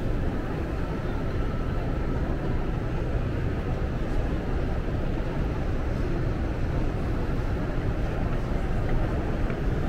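Steady low rumble of a train running.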